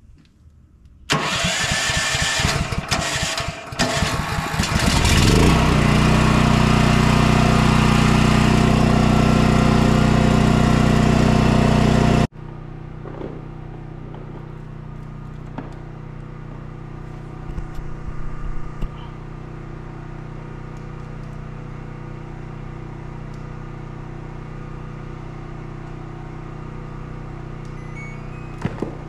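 Propane-fed portable generator being started: about four seconds of rough, uneven cranking and sputtering, then the engine catches, rises in pitch and settles into a loud steady run. About twelve seconds in it cuts off sharply to a much quieter steady hum.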